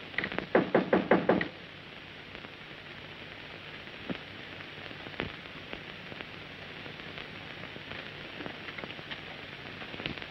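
A quick run of about six knocks in the first second and a half. After it, the steady hiss and scattered crackle of an old film soundtrack.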